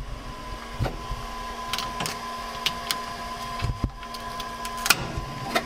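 3D printer running a print: a steady stepper-motor hum with short clicks and ticks scattered at irregular intervals.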